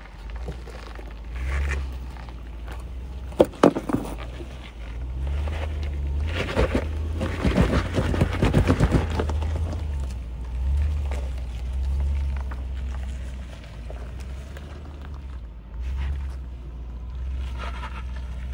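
Land Rover LR4 engine running at low revs as it crawls over rock, its level swelling and easing, with two sharp knocks about three and a half seconds in and a stretch of scraping and crunching from the tyres on rock a few seconds later.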